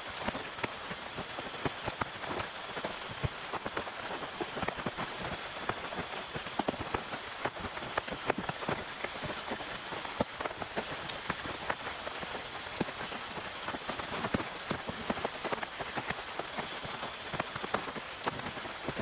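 Steady rain falling on a tent, with many individual drops ticking sharply through an even hiss.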